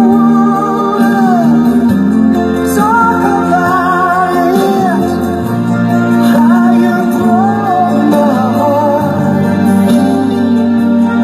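Slow ballad played back through a small amplifier-and-speaker setup during a sound test: long held, wavering melody notes over steady bass notes.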